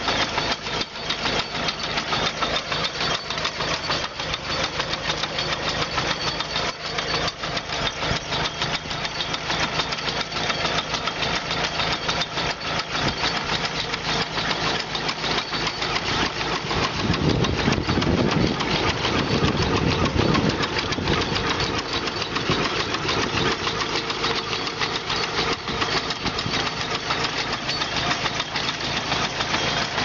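Tractor engine running steadily as it pulls a potato digger through the soil, with a continual clatter from the digger. The engine's low sound swells for a few seconds about two-thirds of the way through.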